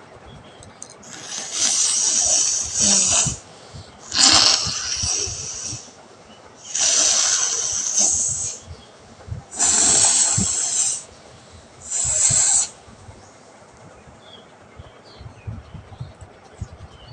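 A person blowing her nose hard, five long forceful blasts of air and mucus through the nostrils, each lasting one to two seconds, with short gaps between them.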